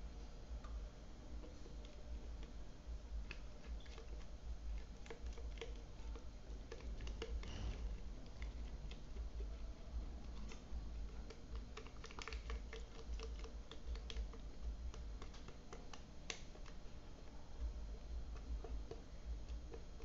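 Cake batter being poured from a plastic blender jug into an aluminium tube pan: faint, irregular light clicks and taps over a low steady hum.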